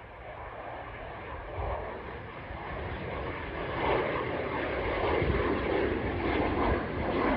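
Twin Williams FJ44 turbofans of a Pilatus PC-24 business jet climbing out after takeoff: a rushing jet noise that grows steadily louder as the jet nears.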